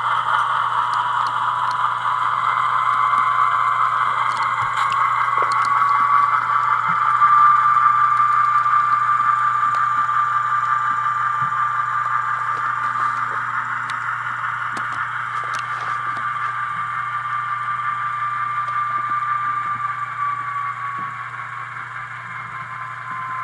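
Tsunami sound decoder in an Athearn RTR C44-9W model locomotive playing its diesel engine sound through a small onboard speaker. The engine note climbs a little about seven seconds in and settles back down near the end, over a low steady hum.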